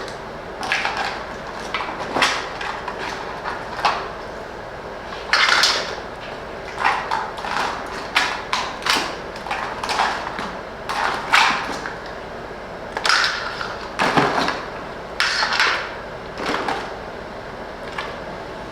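Live blue crabs being handled and put into a crab-boil pot: irregular clattering and scraping of shells, a couple of sharp knocks or scrapes every second or so, some longer and rasping.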